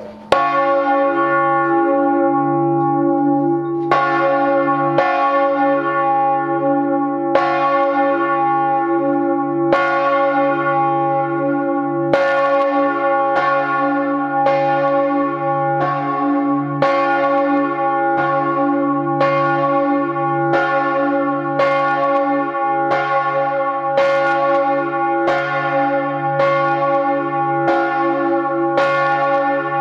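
The large church bell of St. Michael's, the Michael bell cast in 1950 by Georg Hofweber of Regensburg, swinging and struck by its clapper, heard close up in the belfry. The first strike comes just after the start and the next few are uneven while the swing builds; after that it settles to about one strike every 1.2 seconds. Each strike rings on into the next over a deep, wavering hum. This is the Vorläuten, the bell rung on its own ahead of the Sunday mass.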